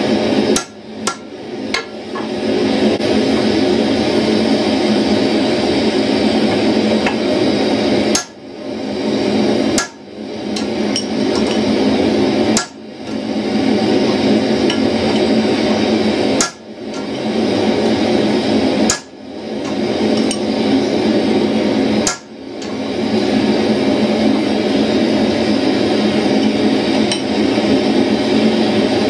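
Hand hammer striking red-hot steel bar stock on an anvil, a series of forging blows drawing out tong reins, with a steady rushing noise underneath.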